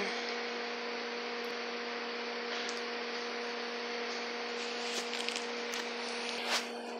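Steady electrical hum with a constant hiss, with a few faint clicks in the second half.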